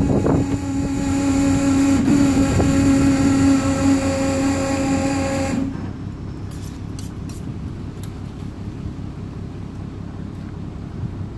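Powered hoist motor running at a steady pitch as it winches a skinned beef carcass up on its spreader bar, stopping abruptly about six seconds in. A few light clicks follow.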